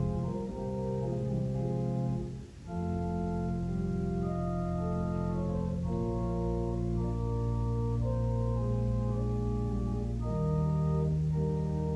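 Church organ playing slow, sustained chords over held bass notes, with a short break between chords about two and a half seconds in.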